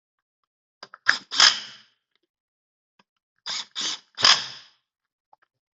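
Metal parts and hand tools clanking and clattering during work on a turbocharger, in two short bursts of a few knocks each, about a second in and again about three and a half seconds in.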